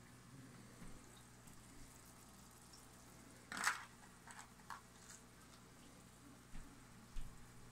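Mbu puffer crushing an apple snail's shell in its beak: one sharp loud crack a little over three seconds in, then several smaller crunches spread over the following seconds.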